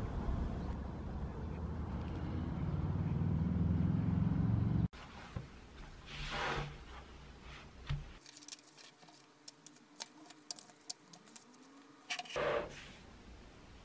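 A steady low outdoor rumble that builds and then cuts off suddenly about five seconds in. It gives way to a quiet room where paper rustles, with small taps and two swishing turns of a thick textbook's pages.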